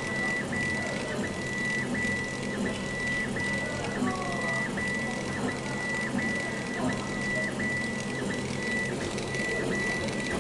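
CO2 laser engraver raster-engraving a glass plate. A steady high whine from the moving head breaks off briefly about every 0.7 s as it reverses at the end of each pass, over a crackling hiss from the laser frosting the glass and a low steady hum.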